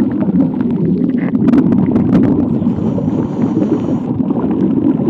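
Muffled underwater noise around a submerged camera: a steady low rushing of moving water, with a few sharp clicks between about one and two and a half seconds in.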